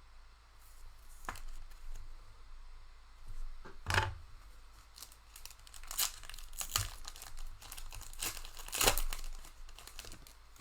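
A Donruss trading-card pack wrapper being torn open and crinkled by hand, in several sharp crackles, loudest about four, six and nine seconds in.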